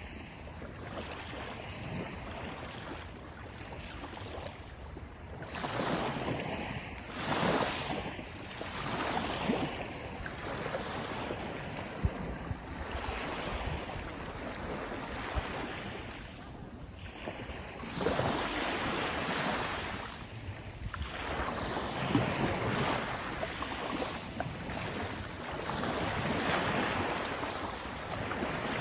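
Sea waves surging and washing in, swelling and fading every few seconds.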